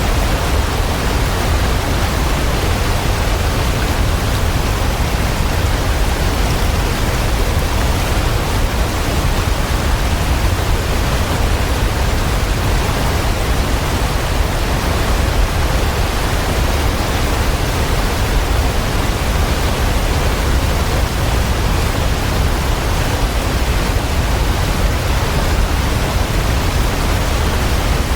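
Waterfall: falling water rushing steadily and evenly, with no breaks or changes.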